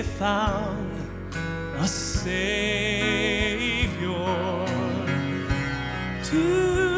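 Live southern gospel music: a male solo voice holds long notes with wide vibrato over instrumental accompaniment, moving to a new note about six seconds in.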